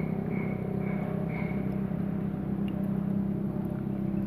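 Steady motor hum, engine-like, with short high-pitched chirps about twice a second during the first second and a half.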